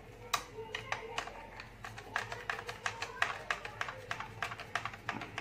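A small precision screwdriver working screws out of a plastic toy locomotive's chassis: a run of light, sharp clicks and taps, several a second, thickest in the second half.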